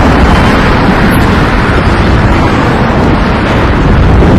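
Wind buffeting the camera microphone: a loud, steady rumble with a hiss above it.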